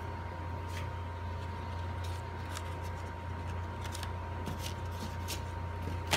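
Cardstock petals being handled and pressed by hand: a scatter of faint clicks and rustles, with a sharper click near the end, over a steady low hum and a faint steady tone.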